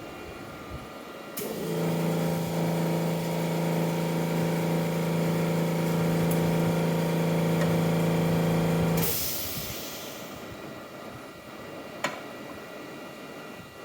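A small motor in a robotic-arm rig hums at a steady pitch for about seven seconds, then stops with a short burst of hissing air. A single sharp click comes a few seconds later.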